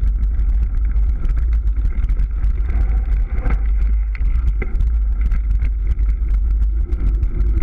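Orange Gyro 29er mountain bike rolling fast over a dirt trail and then gravel, with heavy wind rumble on the handlebar camera's microphone. Tyre noise and a constant chatter of small rattles from the bike and mount run through it, with a few sharper knocks from bumps around the middle.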